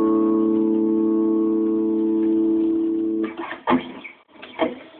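A chord on a hollow-body electric guitar with a Bigsby vibrato rings on and slowly fades, then is cut off a little over three seconds in. A few short, choppy strokes follow.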